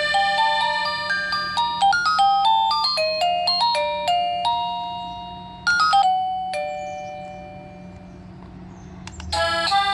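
Home Zone wireless doorbell receiver playing its built-in chime tunes: a quick electronic melody of clean beeping notes, then about halfway through a short bright chime that rings on and fades away, and near the end a new tune begins. A low steady hum runs underneath.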